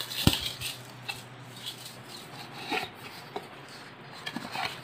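Cardboard box handled and opened by hand: rubbing and sliding of the cardboard, with one sharp knock just after the start and scattered light taps and scrapes.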